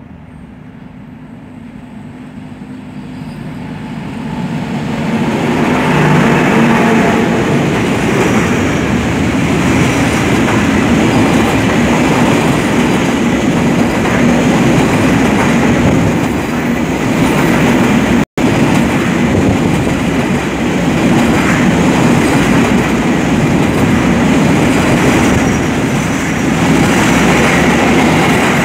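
A container freight train hauled by a class 441 electric locomotive passes. The sound grows louder over the first five seconds as the train draws level, then the container flat wagons roll by with a steady rumble and the clatter of wheels over the rail joints. The sound cuts out for a split second partway through.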